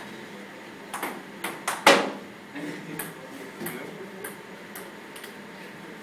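Table tennis ball clicking on paddles and the table during a rally, in irregular sharp ticks, with one louder knock just before two seconds in.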